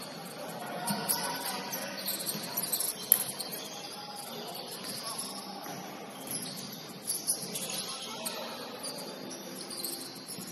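Basketball gym noise: a stream of short, high sneaker-like squeaks over distant voices, with a sharp knock about three seconds in and another about seven seconds in.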